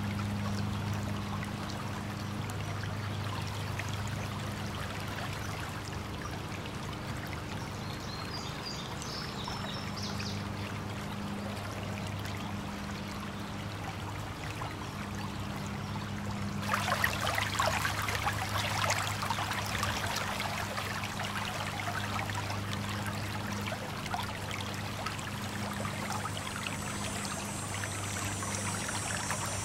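Running, splashing water over a steady low hum. About seventeen seconds in the splashing turns louder and more crackling.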